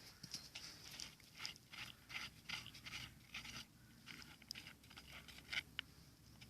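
Faint, irregular clicks and scrapes of a hand tool working a bolt on a YUMZ tractor's water pump during its disassembly.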